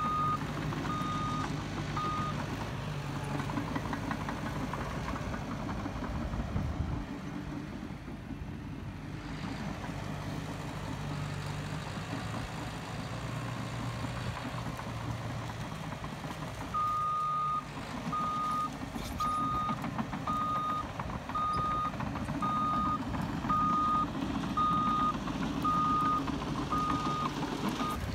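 Caterpillar crawler bulldozer's diesel engine running under load while its reverse alarm beeps steadily. The beeping shows the dozer is backing up. It sounds for the first couple of seconds, stops, and starts again about two-thirds of the way in.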